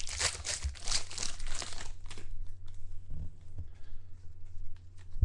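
Trading-card pack wrapper crinkling and tearing open, dense for about two seconds, then only a few faint handling clicks.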